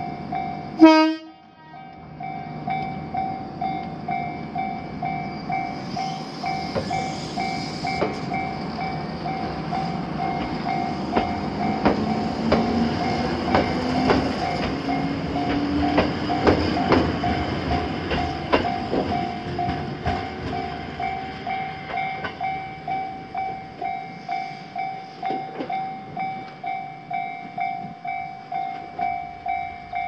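Japanese level-crossing warning bell ringing in steady strokes about twice a second, with a short loud horn blast from the approaching Choshi Electric Railway train about a second in. The electric train then rolls over the crossing through the middle of the clip, its wheels clacking over rail joints and its motors giving a rising whine, and the bell stops at the very end as the crossing clears.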